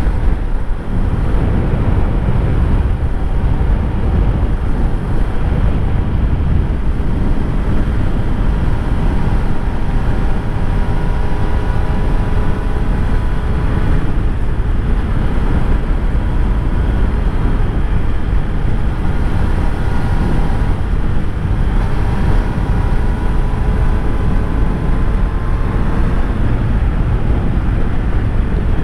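Motorcycle riding at road speed: heavy wind rush on the microphone over the faint inline-three engine of a Triumph Street Triple 765 RS, whose note rises slowly in pitch twice as the bike pulls.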